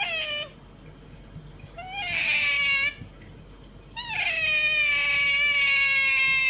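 An animal calling three times: a short call, then a second of about a second, then a long drawn-out call, each sliding down a little in pitch, the last the longest.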